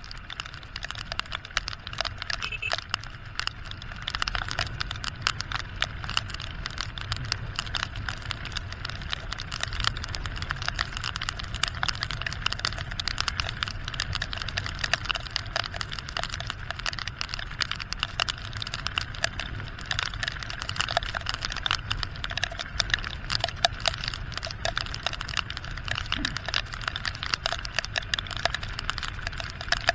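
Raindrops hitting the camera in a rapid, irregular ticking, over the steady low sound of a Honda XR150 motorcycle running at road speed with wind and tyre spray on the wet road.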